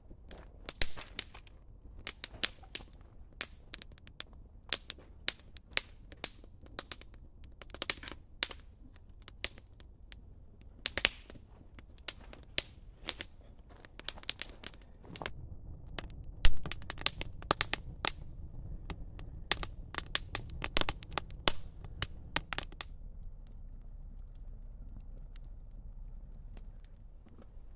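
Wood fire of split kindling crackling and popping in a steel fire bowl, with sharp irregular pops several times a second and a low rush of flame beneath. The pops die away in the last few seconds.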